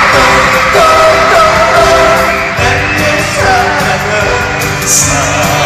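Live pop music with a singing voice, loud and filling a large hall, with audience yells over it.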